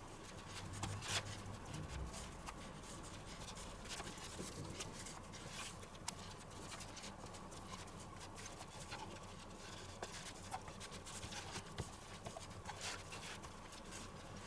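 Faint, irregular soft patting and light knocks of hands pressing pizza dough flat on a floured wooden cutting board.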